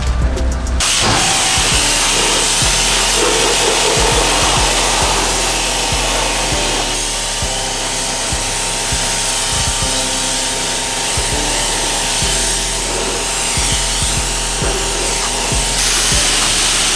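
A power tool of car-detailing gear running steadily, starting about a second in, with music underneath.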